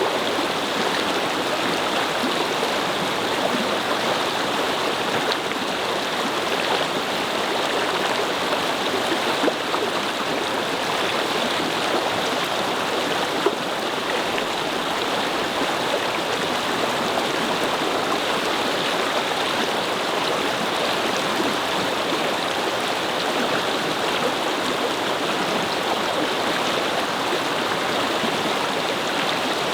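A brook babbling over stones: steady, even water noise.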